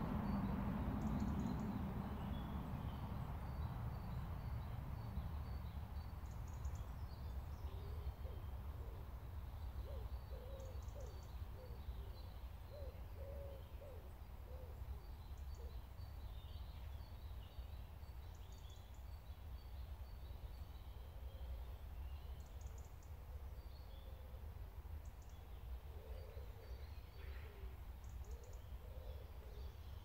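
Woodland ambience: a low steady rumble, with a rushing noise that fades away over the first few seconds. Small birds give short high calls throughout, and a bird gives low hooting or cooing phrases in the middle and again near the end.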